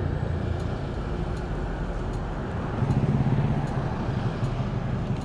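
Street traffic noise with a motor vehicle engine humming nearby, growing louder about three seconds in.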